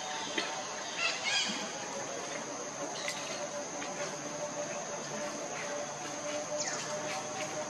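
Outdoor ambience dominated by a steady, high-pitched insect drone, with a few faint clicks and brief chirps, a cluster of them about a second in and a short falling call near the end.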